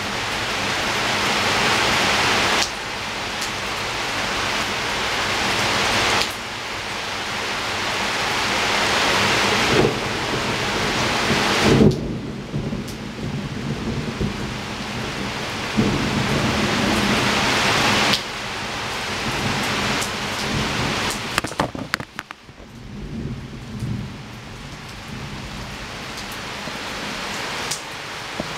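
Rain falling against a window, a steady hiss that grows louder and then drops back abruptly every few seconds. Low rumbles of thunder come in the middle part.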